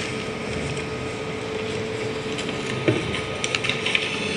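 Steady hum of a hall's ceiling fans and air conditioners, with a few light clicks and knocks from about three seconds in.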